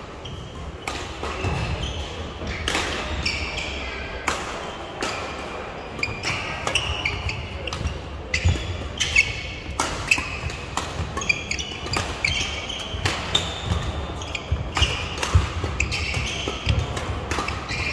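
Badminton rally play in a sports hall: many sharp racket-on-shuttlecock hits at irregular intervals, with shoes squeaking and thudding on the court floor.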